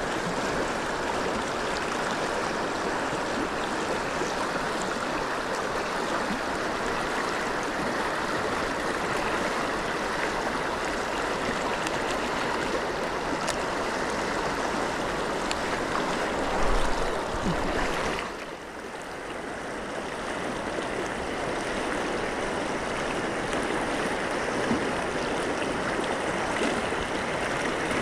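Steady rush of river water. About two thirds of the way in there is a brief low bump, and the water sound drops for a moment before building back.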